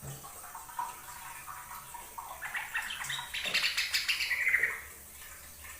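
Yellow-vented bulbul (trucukan) singing: scattered notes, then about two seconds in a louder run of quick bubbly chattering notes that ends in a falling note.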